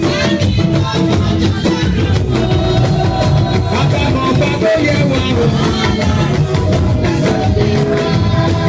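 Live Yoruba gospel band music with a steady drum-kit beat and guitar.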